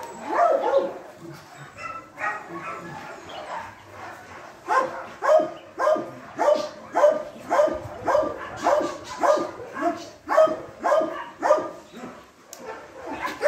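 A dog barking: a few calls near the start, then a steady run of barks at about two a second from around four and a half seconds in until near the end.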